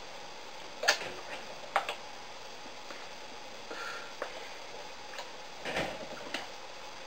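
Hands clapping and slapping together and against clothing as a person signs, over a steady hiss of room tone: a sharp smack about a second in, another just before two seconds, and a couple more softer ones near six seconds.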